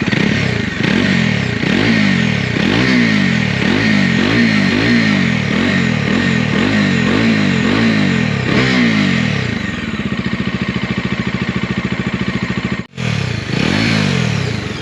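Bajaj Dominar 250's single-cylinder engine on its stock exhaust, revved in a quick, even run of throttle blips, about one and a half a second. About ten seconds in it settles to a steady idle, and after a brief gap it is revved once more near the end.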